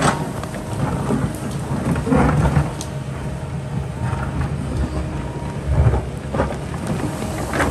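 Kobelco hydraulic excavator's diesel engine running steadily under load, with several heavy rumbles and scrapes as its bucket pushes and breaks up rock and earth, the strongest about two seconds and six seconds in.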